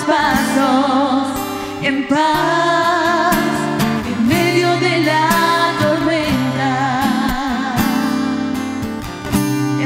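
Two women singing in long, held phrases over a strummed acoustic guitar, live Christian worship ballad.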